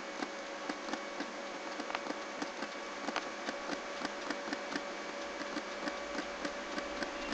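Faint computer mouse clicks, two or three a second and uneven in strength, over a steady low electrical hum.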